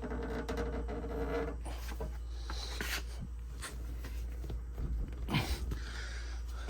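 Lug nut being tightened by hand with a wrench handle: a quick run of metallic clicks in the first second and a half, then scraping, and a louder knock about five and a half seconds in.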